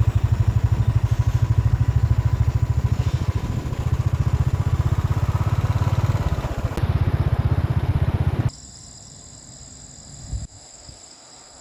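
A motorcycle engine running steadily close by, a regular low thudding of about ten beats a second. About eight and a half seconds in it cuts off abruptly, leaving insects calling steadily at night, with one short thump near the end.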